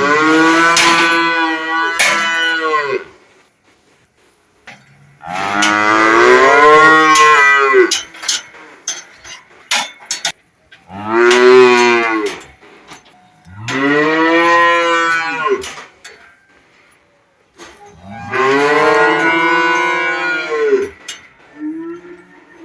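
Cow mooing: five long moos, each rising and then falling in pitch, with pauses of one to three seconds between them.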